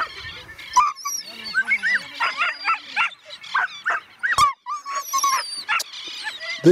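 Greyhounds yelping and whining, a rapid string of short high cries that keeps on without a break.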